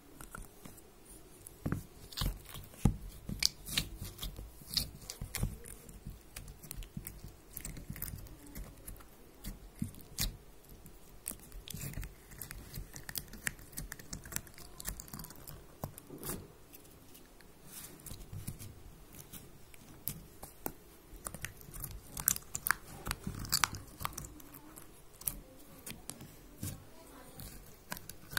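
Glitter slime being squished and poked in a clear plastic tub, giving irregular sharp clicks and pops.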